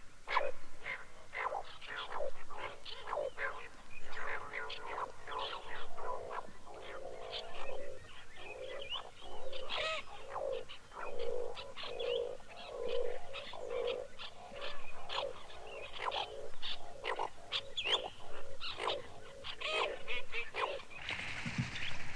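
Asian dowitchers calling, many birds at once, in a dense chorus of short, repeated calls.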